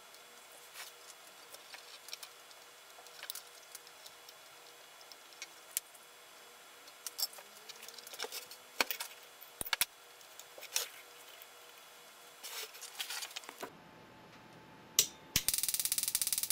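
Light clicks and taps from handling a circuit board and wires. About a second before the end, the xenon lamp ignitor is switched on and its makeshift wire spark gap fires in a loud, rapid crackling buzz, the gap set much too small.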